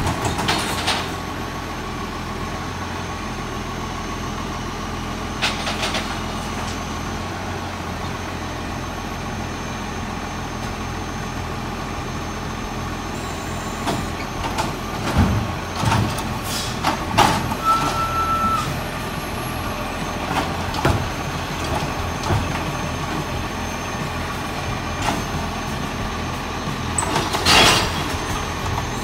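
Side-loading garbage truck running at a standstill while its hydraulic arm lifts wheelie bins and tips them into the hopper: a steady engine hum and a steady whine, broken by scattered clanks and knocks from the bins and arm. There is a louder hiss-like burst near the end.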